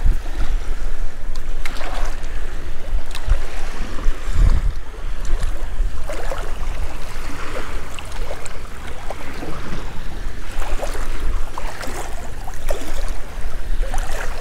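Wind buffeting the microphone over choppy shallow bay water, with a steady low rumble, small waves lapping and scattered light clicks and splashes.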